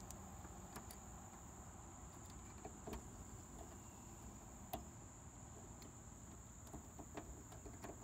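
Faint, steady high-pitched chirring of crickets or similar insects, with a few faint taps.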